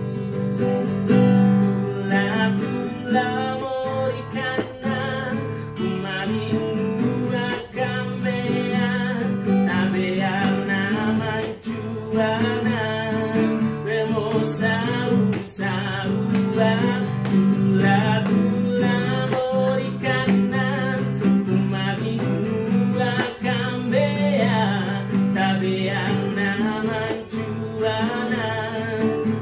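A man singing a song from Buton, accompanying himself on a strummed acoustic guitar.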